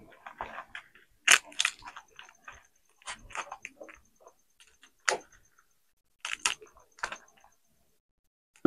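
Dry tamarind pods being cracked open and peeled by hand: irregular crisp snaps and crunches of the brittle shells, a few per second at times, with a heavier knock near the end.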